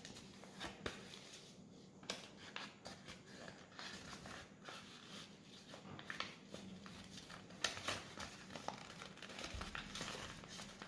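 Faint rustling and crinkling of a square sheet of origami paper being folded and pressed flat by hand, with scattered light taps and a few louder crinkles near the end.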